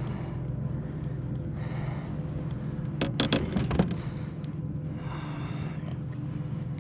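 A winded man breathing heavily after paddling and pedalling after fish, with a few short knocks about three seconds in, over a steady low hum.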